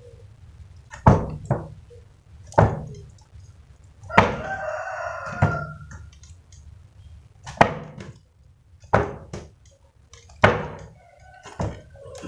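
A rooster crows once, about four seconds in, a call lasting about a second and a half. Sharp knocks come roughly every second to second and a half.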